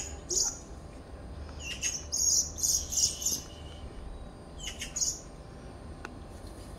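Small bird chirping in short, high calls: a single chirp at the start, a quick run of chirps about two seconds in, and another pair around five seconds in.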